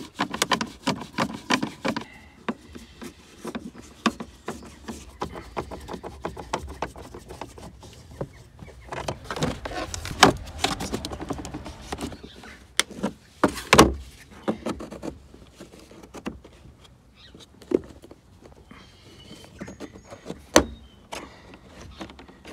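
Clicks, knocks and rattles of hard plastic dashboard trim and a screwdriver as the glove box's fixing screws are undone and the glove box is worked loose. There is a quick run of clicks at the start, and a few louder knocks about ten, fourteen and twenty-one seconds in.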